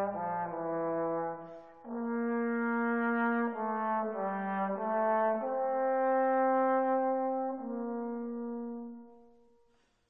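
Background music: a slow melody of long held notes that change in steps, fading out near the end.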